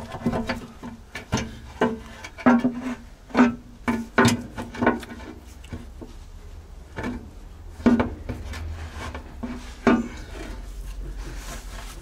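MAN V8 diesel's metal oil pan knocking and scraping against the engine block as it is pushed up and worked into place by hand. The knocks are sharp, with a short metallic ring, and come thickly in the first five seconds, then a few more later on.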